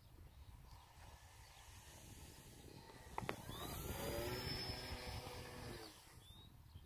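Electric motor and propeller of a Mercury Galahad model aeroplane whining as it flies low past, growing louder and then dropping in pitch as it moves away. A sharp click sounds a little after three seconds in, over low wind rumble.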